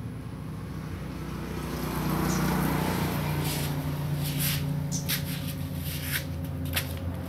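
An engine running steadily, growing louder about two seconds in, with a scatter of sharp clicks over it.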